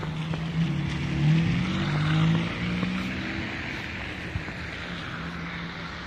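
A motor vehicle's engine running with its pitch stepping up and down for a couple of seconds, over a steady hiss of traffic on a slushy road.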